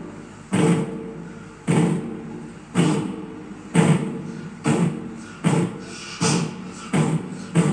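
A sound effects artist imitating a steam locomotive pulling away: a string of chuffs that come closer and closer together, about one a second at first and nearly two a second by the end, as the engine gathers speed.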